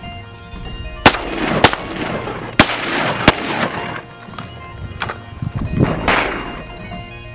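Semi-automatic SKS rifle in a bullpup stock firing several single shots at irregular spacing, each crack trailing off in an echo, with background music underneath.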